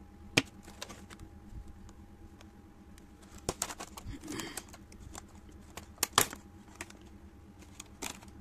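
Clear plastic blister packaging handled and flexed in the hands: scattered sharp clicks and snaps, with a brief crinkle in the middle.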